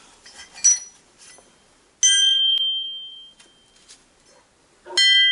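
An old steel axe head being tapped and ringing clearly like a bell: a short tap about two-thirds of a second in, then two harder strikes about three seconds apart, each ringing on for about a second.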